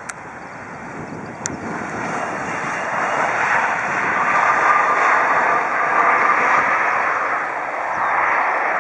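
Jet engines of a twin-engine regional airliner with tail-mounted engines, just touched down and rolling out on the runway: a loud steady rush of engine noise that swells over the first few seconds, with a faint steady whine at its loudest, then eases a little and swells again near the end.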